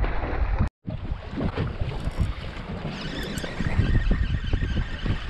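Wind buffeting the microphone over choppy sea, with water sloshing. The sound cuts out completely for a moment under a second in, then carries on.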